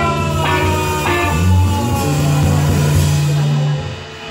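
Live rock band playing an instrumental passage: electric guitars, bass and drums, with long notes gliding downward in pitch over steady bass notes. The music drops in level near the end.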